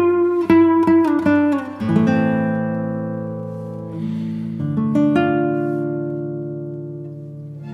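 Background music of an acoustic guitar picking a run of quick notes, then two chords struck and left to ring, each slowly fading.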